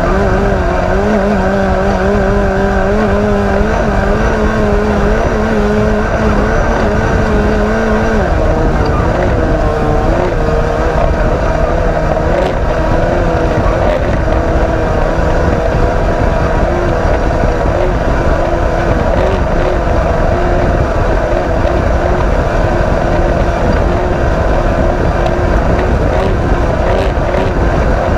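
Off-road race vehicle's engine running hard and continuously, its pitch wavering up and down, over a heavy rumble. About eight seconds in a strong lower tone drops out and the engine settles at a somewhat higher, wavering pitch.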